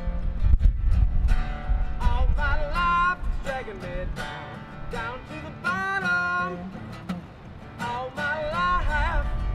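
A man singing to his own strummed steel-string acoustic guitar, in sung lines with a few long held notes.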